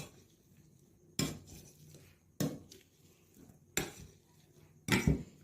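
Cutlery knocking against a dish four times, roughly once a second, each knock short and sharp.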